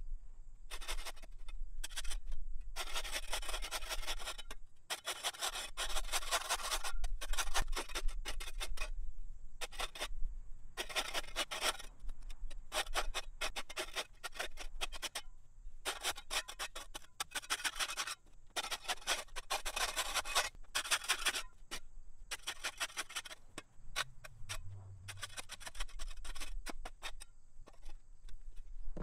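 Repeated rough scraping strokes of a hand tool dragged over ground and debris in yard clean-up, each about a second long and coming roughly every two seconds with short pauses between.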